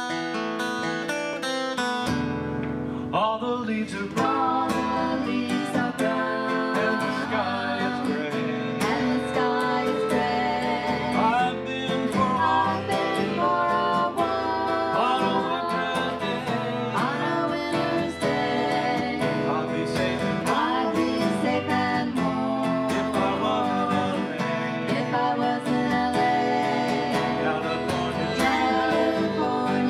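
Live band music: an acoustic guitar picked steadily, joined about three seconds in by a man singing lead.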